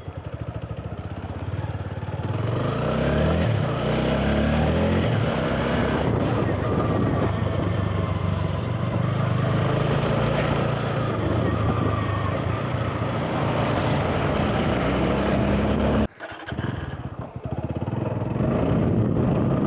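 TVS Apache 200 motorcycle's single-cylinder engine under way, pitch rising as it accelerates through the gears, then running steadily. It cuts out suddenly for a moment near the end and climbs in pitch again.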